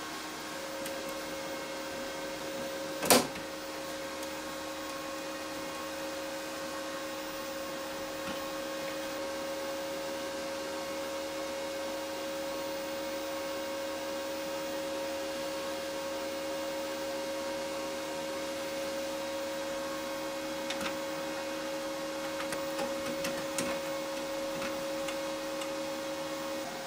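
A steady hum with a weaker lower tone beneath it, starting just after the start and stopping just before the end. A sharp click comes about three seconds in, and a few lighter clicks of metal parts being handled come near the end.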